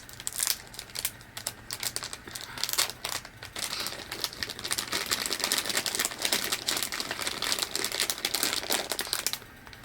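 Crinkling of a snack package of gummy sour kiwi slices as it is handled: scattered crackles at first, then a dense run of crinkling from about four seconds in that stops shortly before the end.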